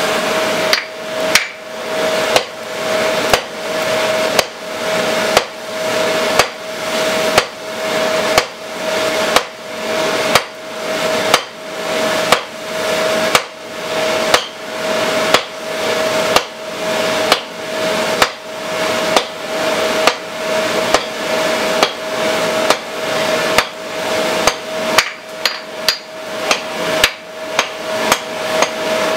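A 5 lb forging hammer strikes hot 3/4-inch square mild steel on a one-hundredweight anvil at a steady pace of about one heavy blow a second, drawing out a point. The anvil rings at one steady pitch under the blows. Near the end the blows come quicker and lighter.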